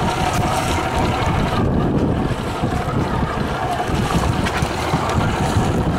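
Paddles splashing and water churning close beside a small paddled cardboard boat, under steady wind rumble on the microphone.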